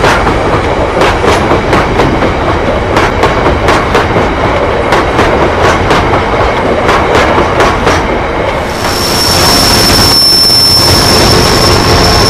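Loaded bogie hopper wagons of a stone train rolling past close by, their wheels clacking rhythmically over the rail joints. About eight seconds in, this gives way to a steadier rumble of the train with a thin, constant high-pitched whine.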